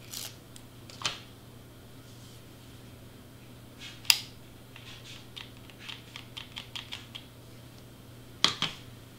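Handling clicks and knocks from hot-gluing a cardstock circle: a sharp knock about four seconds in, a quick run of small ticks a little later as hot glue is dotted on, and a pair of knocks near the end, over a faint steady hum.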